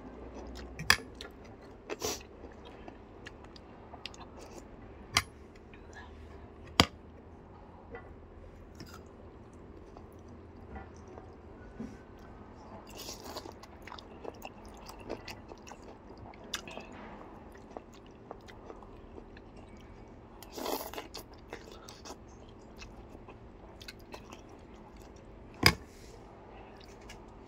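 A person eating noodles close to the microphone: chewing, with slurps of long noodles about 13 s and 21 s in. Several sharp clicks stand out above the eating, over a faint steady hum.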